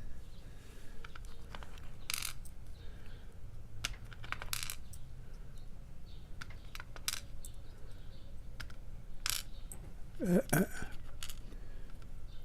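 Small metal lock pins from a padlock's cylinder being tipped out and handled, with scattered light clinks and taps of metal on a hard surface. A short vocal sound comes about ten seconds in.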